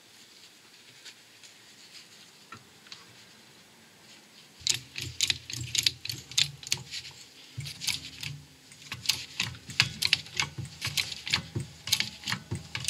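A 6-ton hydraulic shop press being worked to press a new front wheel bearing into its hub carrier. It is quiet at first; about four and a half seconds in, rapid irregular clicking and creaking begins with a low hum underneath, and it keeps on.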